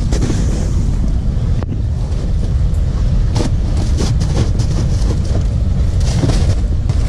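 Wind buffeting an outdoor microphone, a heavy, steady low rumble, with scattered short knocks and rustles over it.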